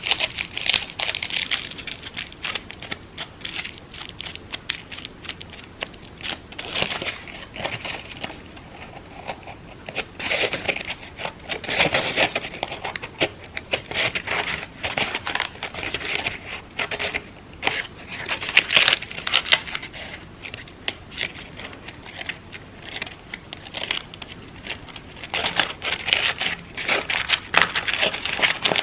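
Crepe paper crinkling and crackling as it is handled and shaped, in uneven spells that come and go.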